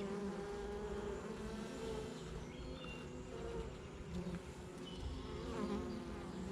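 Many honey bees buzzing around a hive opened for inspection: a steady hum of many wingbeats whose pitch wavers as individual bees fly near and away.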